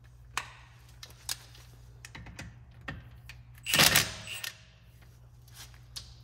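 Scattered light clicks and knocks over a low steady hum, with a louder clatter about four seconds in.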